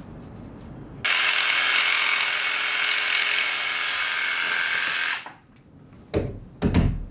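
Handheld cordless drill running steadily for about four seconds, with a whir that starts abruptly and winds down as it stops. A couple of low knocks follow near the end.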